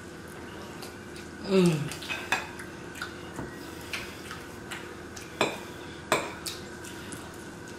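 A metal fork clinking and scraping against a plate, several sharp clinks spaced about a second apart. A short falling vocal hum, the loudest sound, comes about a second and a half in.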